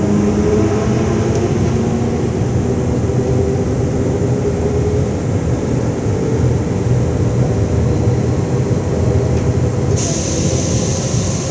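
Z 20500-series (Z2N) double-deck electric multiple unit running along the platform, with a steady loud rumble and a hum of steady tones. A sudden hiss joins about ten seconds in.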